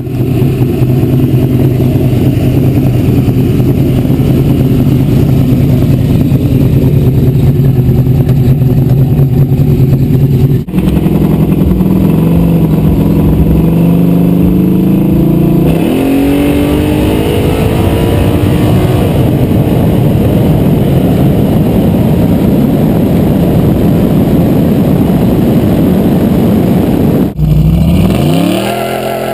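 1981 Pontiac Trans Am's 420-cubic-inch small-block V8, about 600 horsepower, running loud as the car is driven. The engine note rises sharply as it accelerates, once in the middle and again near the end, with two abrupt breaks in the sound.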